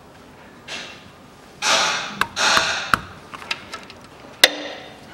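Combination wrench tightening the fill plug on the front differential housing: several sharp metallic clicks of the tool on the plug, the loudest near the end, with a few short rushing noises in between.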